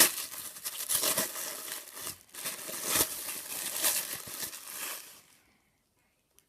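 Wrapping crinkling and rustling as a package is unwrapped by hand, with sharper crackles throughout, stopping about five seconds in.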